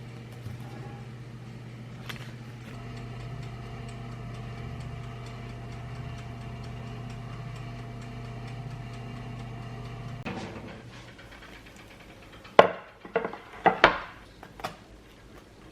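A steady electrical hum from a running appliance or motor, with a faint higher tone over it, cuts off about ten seconds in. A few sharp clacks and knocks follow near the end, the loudest sounds here.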